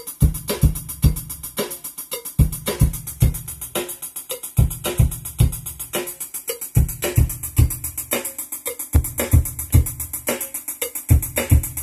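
Sequenced electronic music from a software synthesizer on the ZynAddSubFX screen: a looping drum-machine beat with a run of kick-drum hits about every two seconds and fast, even hi-hat ticks, over short synth notes.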